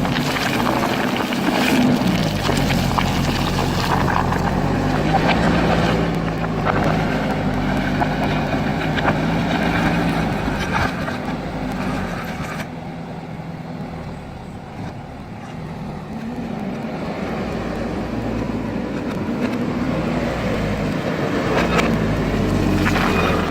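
JCB backhoe loader's diesel engine working under varying load, its note rising and falling, with scattered knocks and scrapes from gravel and stone. About halfway through the engine eases and grows quieter, then builds up again.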